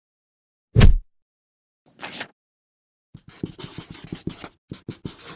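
Black marker scratching across paper in quick short strokes, writing out a line of text, from about three seconds in. Before it come a heavy low thud about a second in, the loudest sound, and a short swish around two seconds.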